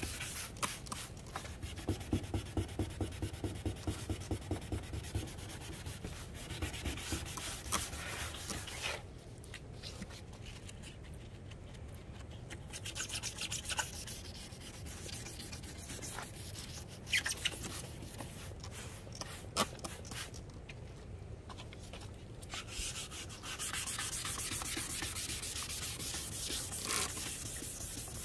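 Sandpaper rubbing on a plastic headlight lens in quick back-and-forth strokes, softer through the middle and steadier and louder near the end.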